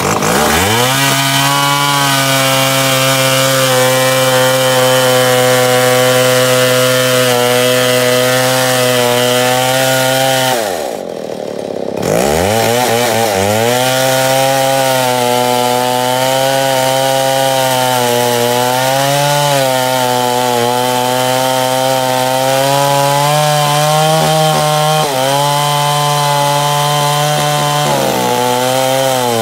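Stihl two-stroke chainsaw at high revs cutting into a large log round, its pitch wavering as the chain bites into the wood. About ten seconds in the throttle eases and the engine pitch falls for a moment, then it revs back up and keeps cutting.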